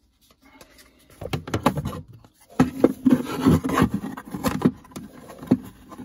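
Hands handling a plastic USB hub in a car's centre console: rubbing and scraping as a portable drive and its cable are tucked into the hub's hidden pocket, with sharp clicks as the magnetic pocket cover is pressed shut.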